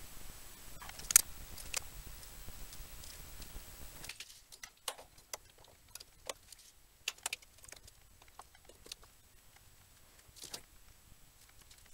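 Scattered light clicks and taps of wires, a small switch and circuit boards being handled on a tabletop, with one sharper click about a second in.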